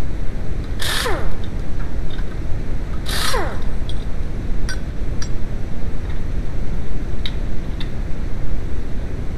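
Power tool with its socket on the front hub's axle bolt, run in two short bursts: each a hiss with a whine that falls as it spins down. A few light metallic clicks follow, over a steady low rumble.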